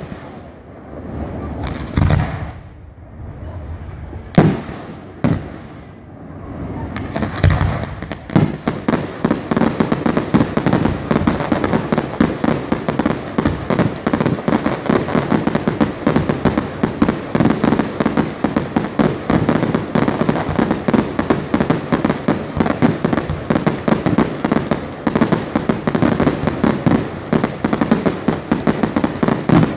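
Fireworks display: a few separate shell bursts go off with loud bangs over the first several seconds. Then, from about eight seconds in, a dense barrage of rapid cracks and bangs runs on without a break.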